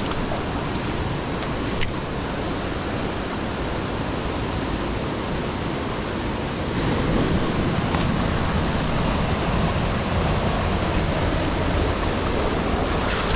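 Rushing water of a jungle creek rapid, a steady dense rush that grows louder about seven seconds in. A single sharp click sounds about two seconds in.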